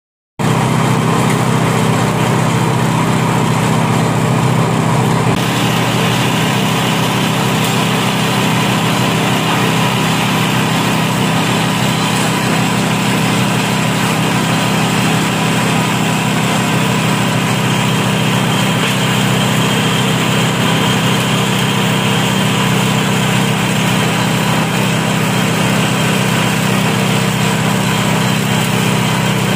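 Small single-cylinder stationary petrol engine running steadily at constant speed, belt-driving a compost grinding machine. A brighter hiss joins the steady hum about five seconds in.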